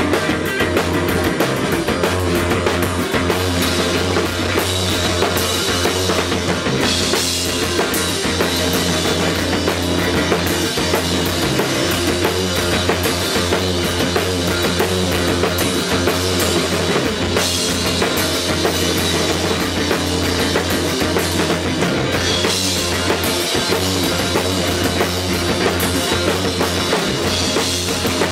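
A drum kit and electric guitar play rock music live, with a low note droning steadily underneath and cymbal crashes every several seconds.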